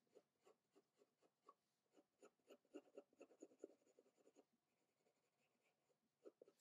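Faint scratching of a soft graphite pencil on paper: quick repeated shading strokes, about three or four a second, that grow fainter and sparser after about four seconds.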